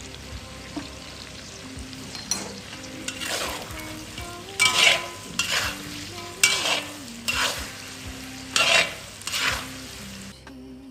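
Food sizzling as it fries in a hot pan, and is stirred and tossed with a spatula. From about halfway in there are loud scraping stirring strokes, roughly one a second.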